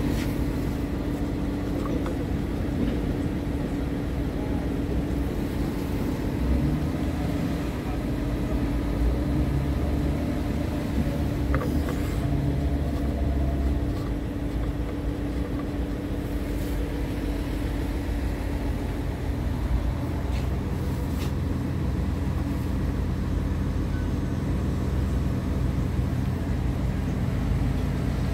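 Scania R tractor unit's diesel engine idling steadily, with a few light clicks from parts being handled.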